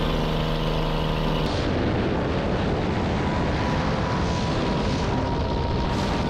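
Steady drone of a small jump plane's engine, which about a second and a half in gives way to a loud, steady rush of wind and engine noise as the tandem pair moves out to the open door in flight.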